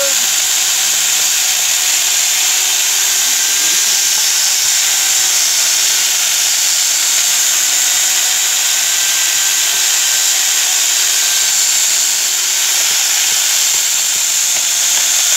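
Angle grinder fitted with a 12-inch chainsaw bar attachment running steadily under load, its chain cutting through a small log, with a steady high-pitched whine.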